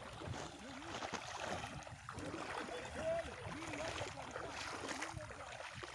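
Steady rush of flowing stream water, with a few faint distant shouts.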